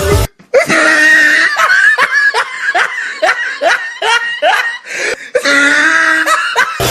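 Laughter: a run of short 'ha' sounds, about three a second, each rising in pitch. It begins after a brief silence and breaks off abruptly near the end, when music comes back in.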